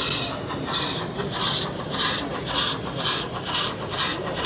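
Model narrow-gauge steam locomotive chuffing slowly and evenly, about two hissy puffs a second.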